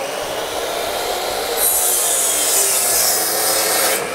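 DeWalt compound miter saw running at full speed. About a second and a half in, the blade bites into a long wooden post and cuts through it with a loud, bright hiss. Near the end the cut finishes and the motor starts to wind down.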